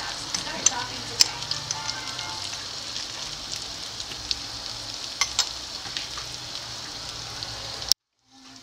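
Melted butter with minced garlic sizzling in a frying pan: a steady hiss with scattered sharp crackling pops. It cuts off abruptly near the end, and faint background music follows.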